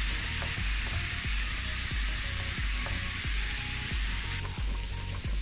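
Marinated boneless chicken pieces sizzling as they fry in oil in a pan, with a steady hiss, while a spatula stirs and turns them in repeated strokes.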